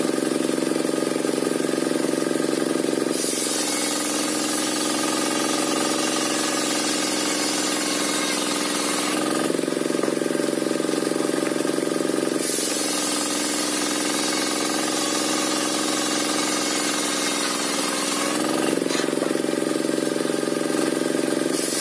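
Engine-driven circular sawmill (serkel) ripping waru wood. The engine runs steadily while the blade cuts three times, for about six seconds each: about three seconds in, about twelve seconds in and near the end. Each cut brings a high hiss from the blade in the wood, and the engine note drops under the load.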